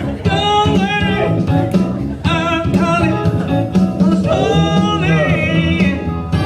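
A song playing: a singer over band accompaniment with a steady beat.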